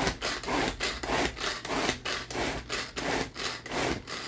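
Tupperware pull-cord hand chopper being yanked again and again, each pull a short whirring zip of the cord and the spinning blades churning a thick avocado, cracker and egg mixture, about two to three pulls a second.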